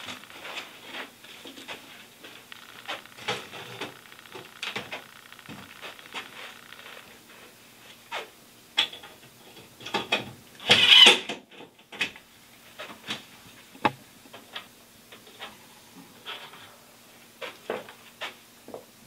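Scattered knocks and clicks from a metal wall cabinet and a cordless drill being handled against the wall while the cabinet is fastened, with one loud, short burst of noise about 11 seconds in.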